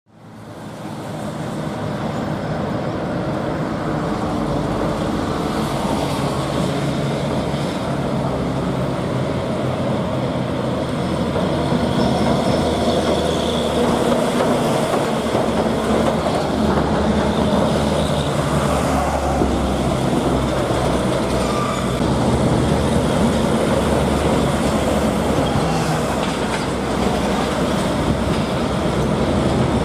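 Large truck engine running steadily under load with road and traffic noise, fading in at the start and growing a little louder partway through.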